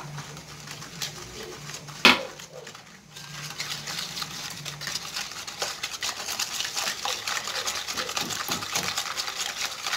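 Wire hand whisk beating eggs, sugar and oil in a plastic bowl: quick, steady clicking and scraping from about three seconds in. One sharp knock about two seconds in as the glass measuring cup is set down.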